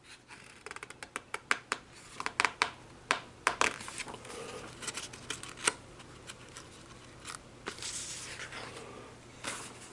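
Paper pages of a picture book being handled and turned: a quick run of crisp paper clicks and crackles, then a softer rustle near the end.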